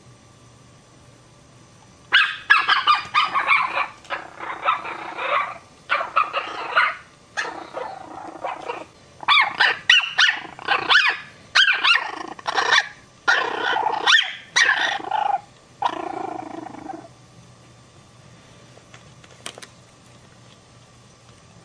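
A puppy barking in a long run of short barks that starts about two seconds in and stops after about fifteen seconds.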